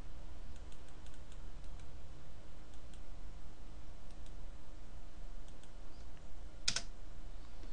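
Faint clicks of a computer keyboard and mouse while a command is copied and pasted into a terminal, with one louder click near the end, over a low steady hum.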